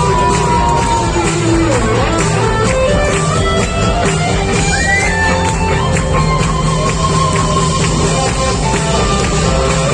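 Live rock band playing, with guitars over a steady beat.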